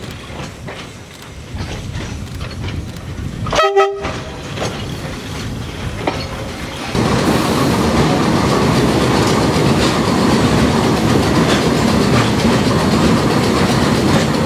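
An approaching electric railcar sounds one short horn blast about four seconds in. Then comes the loud, steady rumble and clatter of riding aboard the moving car, starting suddenly about halfway through.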